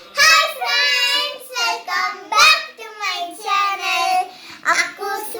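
A child singing in a high voice, in short phrases with some notes held and brief pauses between.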